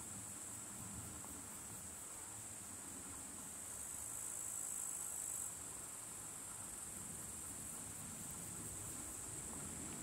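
Insects chirring in a steady high-pitched trill, which swells a little about halfway through and then drops back suddenly.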